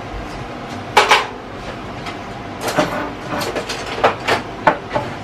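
Kitchenware being handled: two sharp clinks with a short ring about a second in, then a run of knocks and clinks over the second half.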